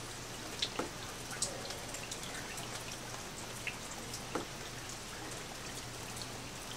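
Water dripping at irregular intervals, single drops about every half second to a second, over a steady hiss and a faint low hum.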